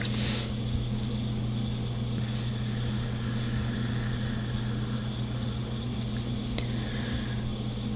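Steady low electrical hum with a faint high whine above it, with a single faint click about six and a half seconds in.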